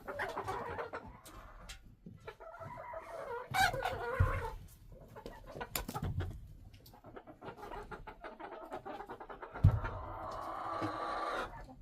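Hens clucking in a coop: repeated short calls, with a longer drawn-out call near the end. A few dull thumps come in between, the loudest about ten seconds in.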